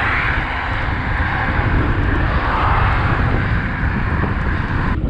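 Strong headwind rushing and buffeting over a camera microphone while cycling, with a steady low rumble of wind and road noise.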